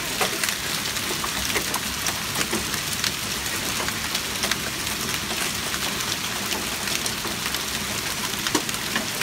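Hail falling hard onto a concrete walkway, brick step and garden bed: a steady dense hiss of hits, with many sharp individual hailstone clicks.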